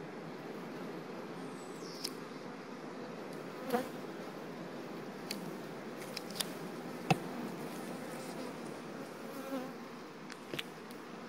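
Honeybees on the frames of an opened hive, humming steadily, with a few sharp clicks scattered through, the loudest a little past the middle.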